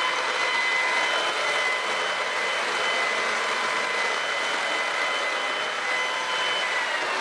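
Ryobi cordless stick vacuum running with a steady high whine, its brush roller driven by a newly fitted belt, which has fixed the roller not spinning. Near the end the whine starts to drop in pitch as it is switched off and winds down.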